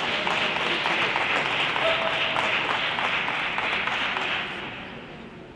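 Arena crowd applauding a won point in a table tennis match, many hands clapping at once, dying away about four and a half seconds in.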